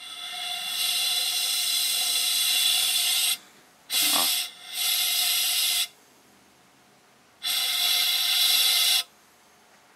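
Compressed air from an air compressor hissing out of the hose of a homemade fake-vomit rig in three blasts: a long one of about three seconds, a shorter one of about two seconds, then a third of under two seconds.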